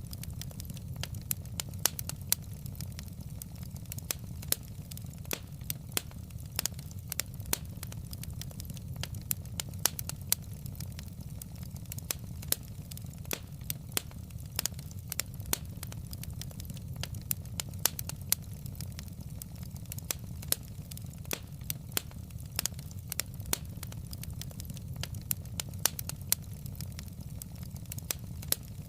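Log fire in a fireplace crackling, with sharp, irregular pops and snaps several times a second over a steady low rumble.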